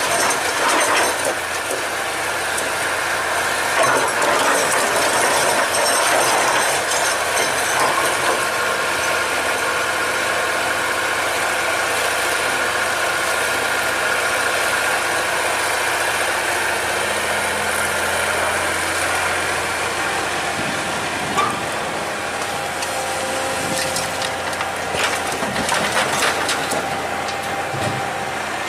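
Excavator's diesel engine running steadily under a continuous mechanical drone with a steady whine, and a few sharp knocks in the last several seconds.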